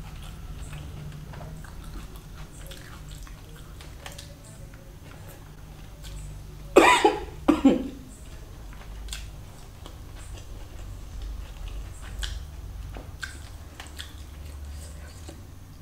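Chewing and soft mouth clicks from eating spicy chicken biryani by hand, over a steady low hum. About seven seconds in come two loud coughs close together, set off by the heat of the chilli-laden biryani.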